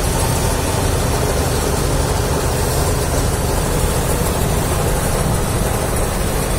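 John Deere 5310 tractor's three-cylinder diesel engine working under load, driving a tractor-mounted Dasmesh 912 combine harvester whose threshing mechanism is running as it harvests rice. The sound is a steady, loud mechanical din with a deep engine drone beneath the clatter of the thresher.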